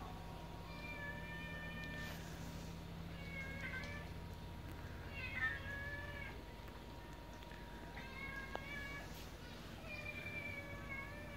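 Cat meowing repeatedly, about five short meows a second or two apart, the one about halfway through the loudest.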